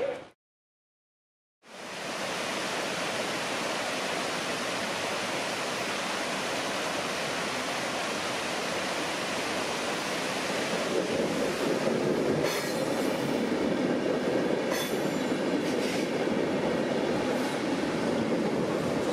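After a second of silence, water pours steadily over a small weir. From about halfway through, a Renfe UT-440 electric multiple unit rolls over the bridge overhead and its sound grows louder, with a few clicks from the wheels on the track.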